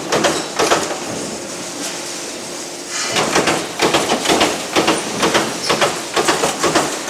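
Metal stamping and punching machinery in a workshop, clanking. A steadier stretch with a faint hum about a second in gives way, around three seconds in, to rapid repeated clanks, about three a second.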